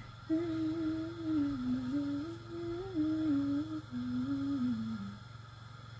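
A voice humming a slow tune, holding notes and stepping between them, stopping about five seconds in, over a steady low background hum.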